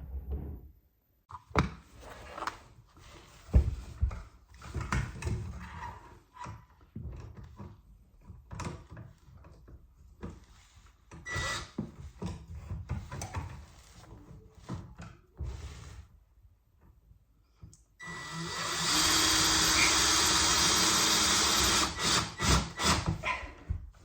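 Scattered knocks and clicks of tools and parts being handled, then a power drill runs steadily for about four seconds, driving a screw into wood, followed by a few more clicks.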